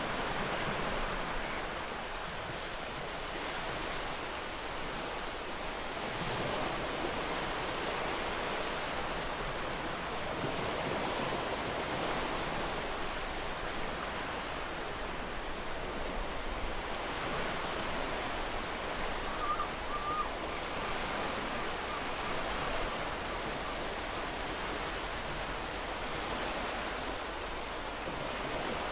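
Ocean surf breaking and washing up a shore: a continuous rushing hiss that swells and eases slowly.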